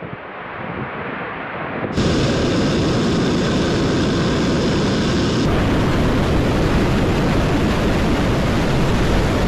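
ABL RS1 rocket's first-stage engines igniting and running at liftoff: a steady, rushing noise that builds through the first two seconds. It jumps abruptly louder and fuller about two seconds in and changes character again abruptly around five and a half seconds in.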